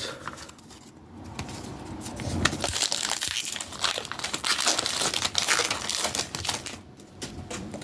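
Crinkling and crackling of a foil Pokémon card pack wrapper being handled and torn open, a dense run of small sharp crackles that builds after about a second and dies down near the end.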